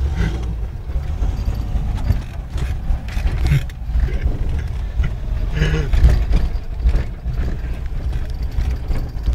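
Range Rover driving over bumpy ground: a steady low rumble broken by frequent knocks and rattles as the vehicle jolts.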